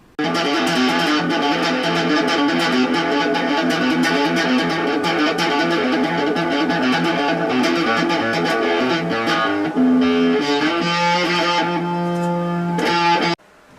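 Loud guitar music, busy plucked and strummed notes over a steady low note, starting suddenly and cutting off abruptly near the end.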